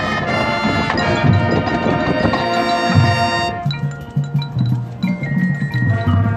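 A band playing: the full ensemble plays until about three and a half seconds in, then drops away, leaving bell-like mallet percussion ringing over a low pulsing drum beat.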